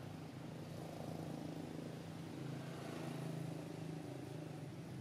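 A steady low engine hum, swelling slightly around the middle.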